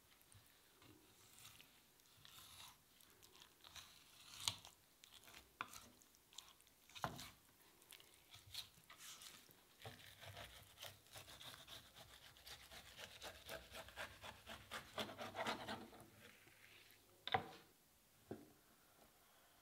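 Knife cutting and scraping through raw salmon on a plastic cutting board: scattered soft clicks and scrapes, then a longer run of dense scraping as the blade is worked along the fillet from the tail end, and one sharp knock of the knife on the board near the end.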